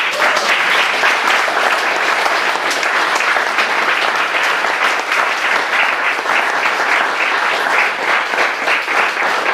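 An audience applauding: dense, steady clapping that breaks out all at once and keeps going.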